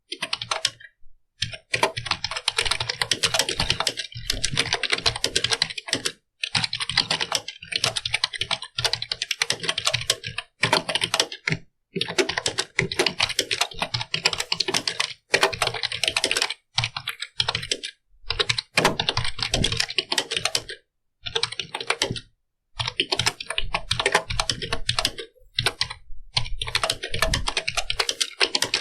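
Computer keyboard being typed on quickly: runs of rapid key clicks broken every few seconds by short pauses.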